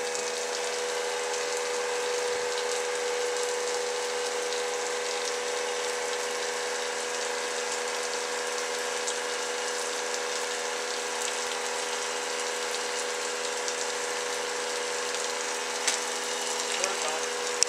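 Steady hiss of steam escaping from a wooden steam box used for bending planks, over a steady hum. Two sharp knocks near the end.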